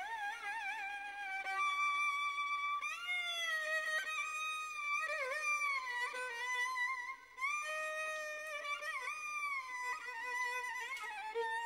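Background score: a solo violin playing a slow melody of held notes with wide vibrato and slides between them, with a brief break about seven seconds in.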